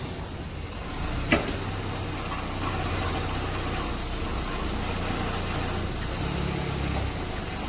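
Ford Escape's 1.6 EcoBoost turbocharged four-cylinder engine running steadily, a little louder from about a second in, with one sharp click shortly after.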